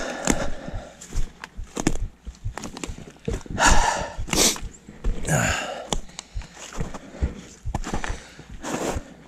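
Footsteps on a mountain slope, crunching and snapping over dry pine needles, twigs and snow, with many sharp clicks and a few louder rushing crunches near the middle and near the end.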